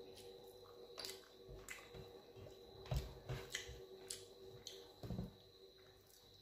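Eating dal and rice by hand: faint scattered squishes of fingers kneading the rice and dal on a steel plate, mixed with mouth-chewing and lip smacks, a few louder ones about three seconds in and again around five seconds.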